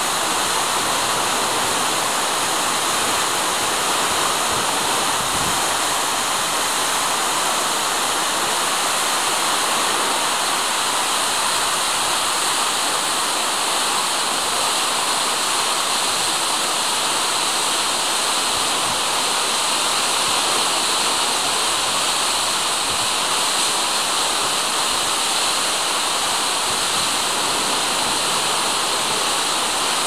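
A waterfall with a 55-metre drop, falling down a rock cliff onto rocks: a loud, steady roar of rushing water with a bright hiss.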